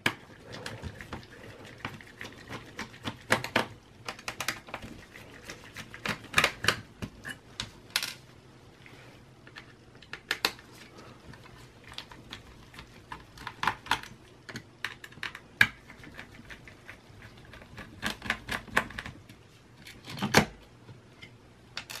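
Irregular light clicks and taps of a mini Phillips screwdriver backing out the four small screws that hold a laptop's hard-drive caddy. The screws are set down on the Dell Inspiron 5758's plastic bottom case.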